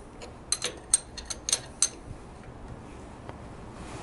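Sharp metallic clicks from the newly fitted kickstarter on a 1940 Harley-Davidson Big Twin transmission as its kick arm is worked by hand. There is a quick cluster of about eight clicks in the first two seconds, then it goes quiet. The mechanism is engaging and working, without an engine to turn over.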